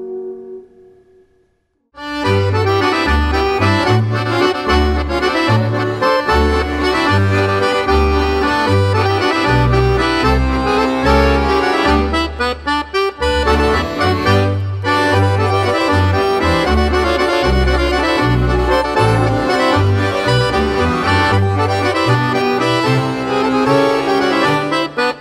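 Music soundtrack: a held brass note fades out, and after a moment's pause lively accordion folk music starts, with a bass line moving note to note under it.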